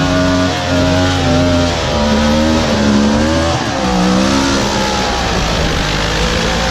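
Off-road vehicle engine revving hard and unevenly under load, its pitch repeatedly climbing and dropping every second or so as the throttle is worked.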